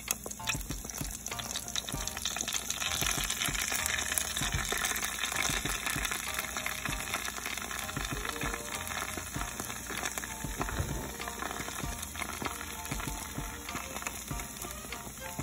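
Pastel pastries deep-frying in hot oil: a dense crackling sizzle of bursting bubbles, loudest a few seconds in and easing slightly after.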